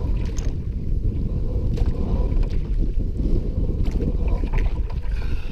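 Wind buffeting the microphone of a camera on a moving canoe: a steady low rumble, with a few faint ticks from the boat and water.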